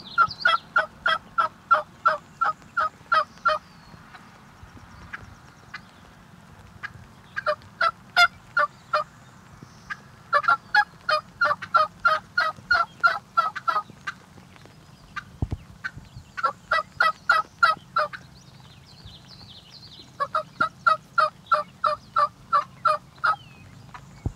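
Hen wild turkey yelping: five runs of loud, evenly spaced yelps, about four a second, each run a few seconds long. Small songbirds sing faintly between the runs.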